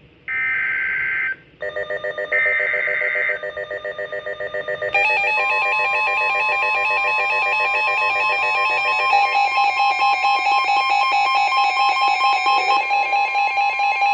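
NOAA Weather Radio EAS alert: the last two of the three screeching SAME data header bursts, about a second each, are overlapped from about 1.5 s by a weather radio's rapidly pulsing electronic alarm. About five seconds in, the steady 1050 Hz attention tone joins and holds under the pulsing alarm, signalling an incoming warning broadcast.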